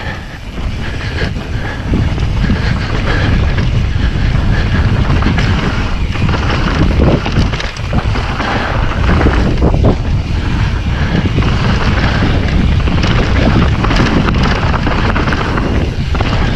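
Wind buffeting the microphone of a camera on a mountain bike riding fast downhill, a loud steady rush with a heavy low rumble and occasional knocks from the bike over rough ground.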